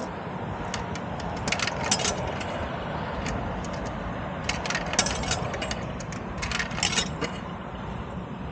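Coins being fed into a self-serve car wash coin box, clinking and dropping in three quick clusters, over a steady low hum.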